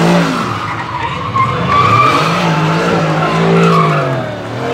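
Mercedes-AMG GT safety car's V8 revving up and down as it spins donuts, with its rear tyres squealing and skidding.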